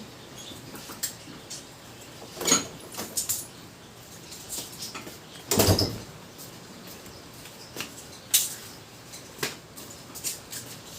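Intermittent clicks, clinks and knocks of parts and tools being handled, with a longer, louder clatter a little past halfway.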